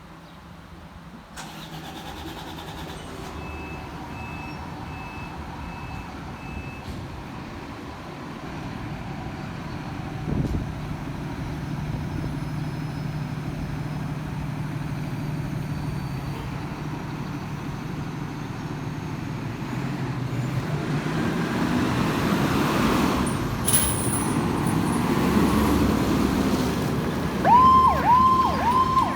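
A fire engine's engine runs and grows steadily louder as the truck gets under way. For a few seconds near the start a high beep repeats about twice a second. Near the end the siren starts up with quick rising sweeps.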